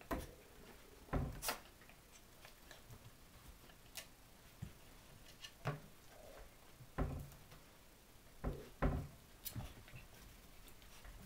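Irregular knocks and rattles of a wooden dresser drawer and its metal handle as a Yorkshire terrier jumps up, pawing and tugging at a cloth bag hanging from the handle. There are about ten knocks, some in quick pairs.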